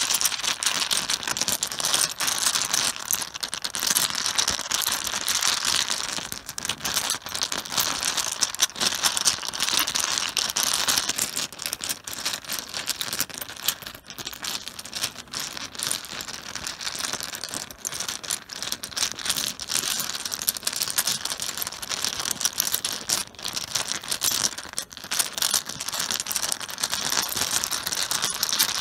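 Mahjong tiles clattering on a cloth-covered surface: a dense, continuous rattle of many tiles knocking against each other, with no pause.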